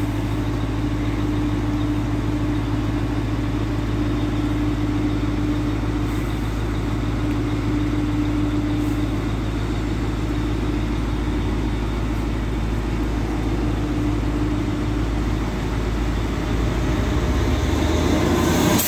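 Regional train standing at the platform with its engine idling, a steady hum with a held mid tone. In the last couple of seconds a second train arrives and runs past close by, its noise swelling over the hum.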